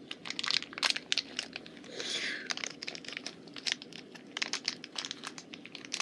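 Plastic blind bag crinkling in the hands as it is squeezed and pulled at to get it open, with a short tearing sound about two seconds in.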